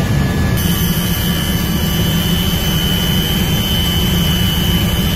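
Helicopter engine and rotor noise heard from inside the cabin: a loud, steady rumble. A steady high whine comes in about half a second in and holds.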